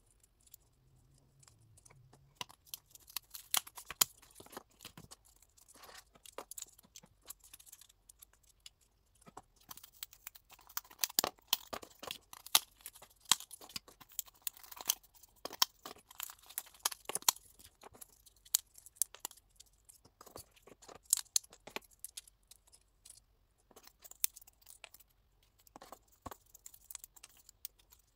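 Cardboard and paper pieces being handled: scattered crinkles, small tearing and peeling sounds and light clicks as standee figures and their stands are separated and fitted together, busiest around the middle.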